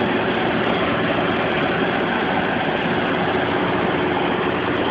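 A heavy engine running steadily and evenly: the crane hoisting the rooftop air-conditioning unit.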